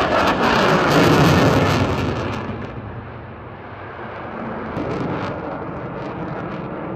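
Twin-engine F/A-18 Hornet fighter jet roaring past at low level with a ragged crackle. It is loudest in the first two seconds, then fades to a lower rumble.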